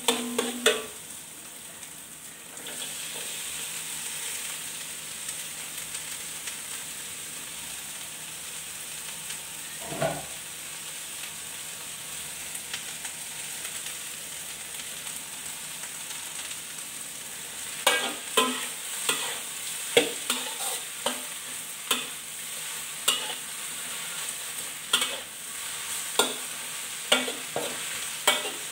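Food sizzling in a hot steel wok over a gas flame, a steady hiss that sets in about two and a half seconds in. A metal spatula scrapes and clanks against the wok as the egg and leafy greens are stir-fried, with one knock about ten seconds in and repeated clanks through the last third.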